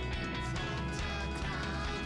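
Quiet background music with a plucked guitar.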